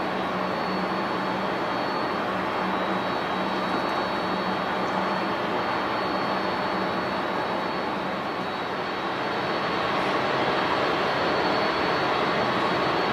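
Jet airliner engines running, a steady rushing noise with a thin high whine, growing a little louder after about ten seconds.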